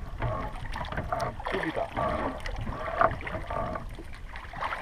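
Water sloshing around a small canoe, with a sharp knock about three seconds in.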